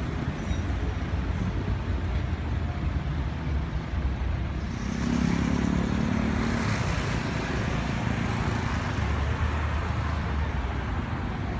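Street traffic on a busy city avenue: a steady rumble of cars, taxis and motorcycles driving past. One vehicle's engine passes close and comes up louder about five to seven seconds in.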